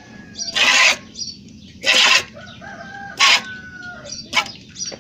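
Squirts of milk from hand milking a cow hissing into a steel pail, about four short spurts at an even pace of roughly one every second and a quarter. Birds call faintly between the spurts.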